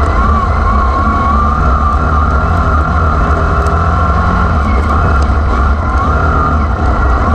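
Wingless sprint car engines running hard in a race, a loud steady rumble with a tone that wavers up and down in pitch as the throttle is worked.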